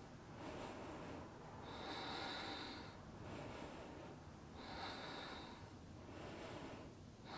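Faint, slow breathing of a yoga instructor holding a pose, with about three soft breaths rising and falling at an even pace.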